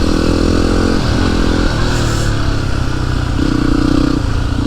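Yamaha WR single-cylinder motorcycle engine running under way. Its note drops a couple of times and picks up again near the end as the throttle changes.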